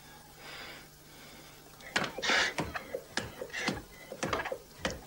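A young man's mouth and breath noises: from about two seconds in, an irregular run of sharp clicks mixed with short, breathy hisses and gasps.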